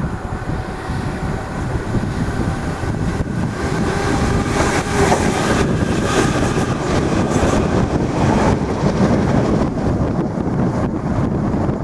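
Irish Rail DART electric multiple unit passing beneath. A whine of several steady tones and a rail rumble build as it nears, are loudest about four to eight seconds in, then fade to a low rumble.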